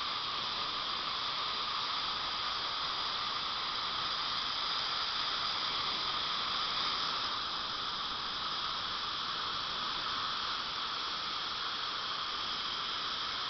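High-speed dental handpiece running steadily with its water spray, giving an even hiss while it cuts an incisal trough in a lower front tooth.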